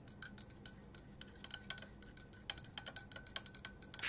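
A stirring rod clinking against the inside of a glass beaker as a solution is stirred to dissolve: quick irregular light clinks, coming closer together in the second half.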